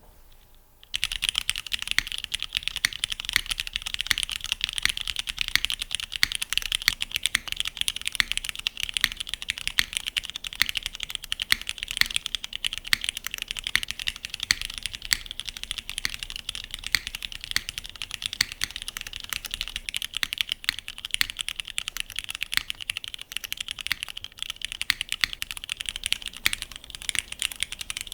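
Continuous fast typing on a custom mechanical keyboard with a stainless steel case, lubed Cherry MX2A Black linear switches and GMK keycaps: a dense, steady clatter of keystrokes starting about a second in.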